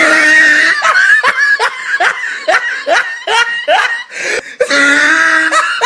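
Laughter in a rapid run of short, falling 'ha' bursts, about three a second. A loud, steady-pitched held sound comes at the start and again near the end.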